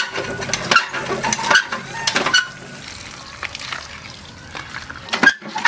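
Metal hand pump worked by its handle, each stroke giving a short clank, about four strokes in the first couple of seconds and another near the end, while water gushes from the spout into a bamboo basket. Between strokes the water keeps splashing as small fish are rubbed clean in the basket.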